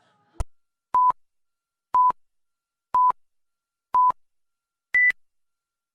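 A click, then electronic countdown beeps: four short beeps at the same pitch a second apart, followed by a fifth, higher beep.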